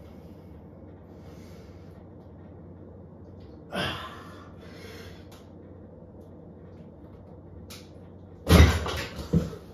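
A man breathing hard through dumbbell preacher curls, with a sharp forced exhale about four seconds in. Near the end comes a loud knock and rattle of the loaded dumbbell's metal plates as the weight comes down.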